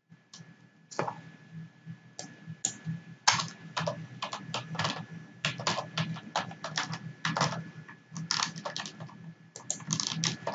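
Typing on a computer keyboard: quick, irregular runs of keystrokes, over a faint steady low hum.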